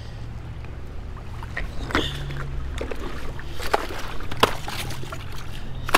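A hooked salmon splashing and thrashing in shallow stream water around a wading angler's boots, with several sharp splashes from about two seconds in, over a steady low rumble.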